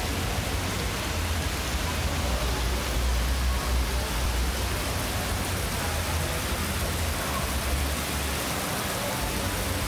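Steady hiss of rain falling on wet paving, with a low rumble underneath.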